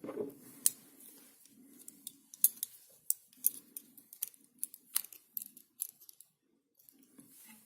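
Small, irregular metal clicks and ticks from handling a brass padlock and its tools on a desk, the sharpest about 2.5 s and 5 s in.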